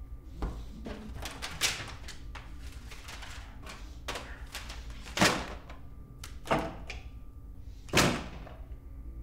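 A series of dull knocks and thuds as objects are handled and set down, about five in all, the loudest around 5 and 8 seconds in, with smaller clattering between them.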